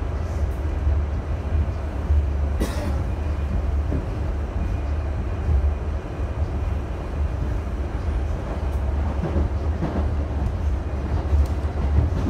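An R68A subway car heard from inside while the train runs: a steady low rumble from the wheels and running gear. About a third of the way in there is one sharp click, with a few fainter ones later.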